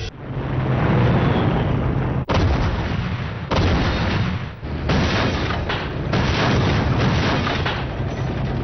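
Battle sound of artillery fire and explosions, a loud continuous rumble that changes abruptly several times.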